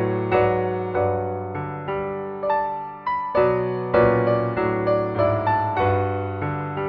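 Piano music: chords and melody notes struck at an unhurried pace, each ringing and fading before the next.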